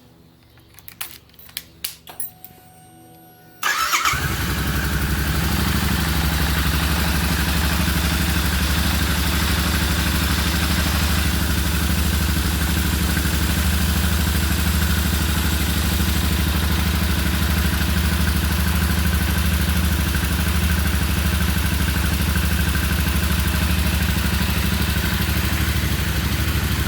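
A few light clicks, then the Volkswagen Karmann Ghia's engine starts abruptly about three and a half seconds in and runs at a steady idle, its note unchanging. The owner calls this engine only a filler.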